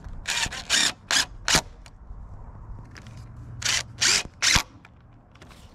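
Cordless drill-driver driving screws to fasten a PVC hoop pipe to a wooden base board, heard as a string of short, sharp rasping bursts in two groups, with a pause of about two seconds between them.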